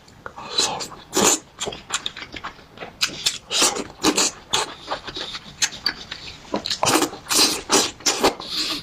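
Close-miked eating sounds: a person chewing and biting spicy food, with irregular wet mouth noises several times a second.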